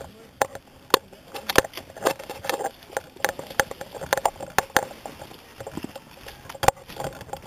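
Footsteps crunching through dry leaf litter and snapping twigs, with gear rattling, in sharp irregular clicks and crackles.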